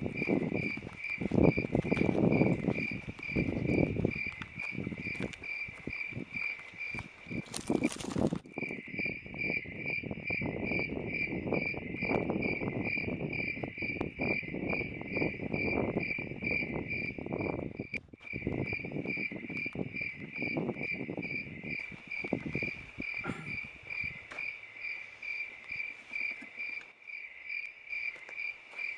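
Crickets chirping in a fast, even pulse that never lets up, with uneven low rustling and thuds underneath that die away a few seconds before the end. A short hiss comes about 8 seconds in.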